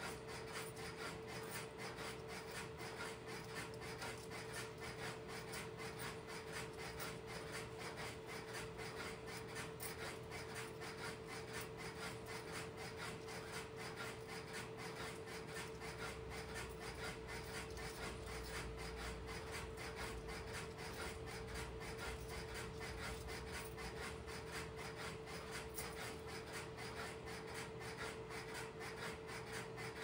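Interrupter relays of an idle Strowger step-by-step telephone switch clicking in rapid, steady succession at a reduced level, with a steady hum underneath.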